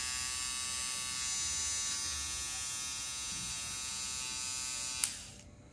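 Kemei KM-6559 cordless trimmer running with its nose-hair trimmer head fitted: a steady motor hum with many overtones. It is switched off with a click about five seconds in.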